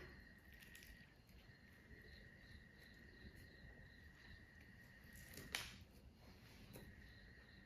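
Near silence: room tone with a faint steady high-pitched tone and a single short click about five and a half seconds in.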